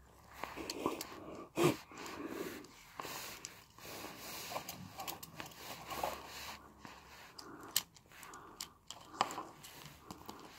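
Toy roller coaster cars, a Long Tomica Dodonpa set, handled and set down on a wooden table. Scattered clicks, taps and knocks run through it, with the sharpest knock a couple of seconds in and two more near the end.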